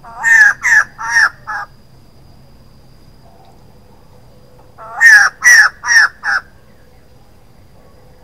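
Female white-crested laughingthrush calling: two loud bursts of four short notes each, about four seconds apart, each burst ending on a shorter note.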